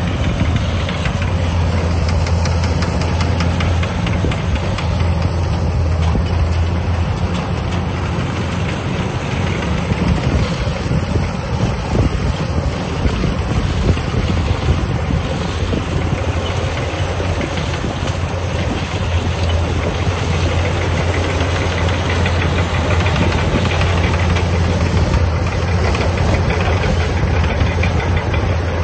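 Kubota DC-105X combine harvester's diesel engine running steadily under load as the machine cuts and threshes ripe rice, a constant low hum with dense mechanical noise from the header and threshing works.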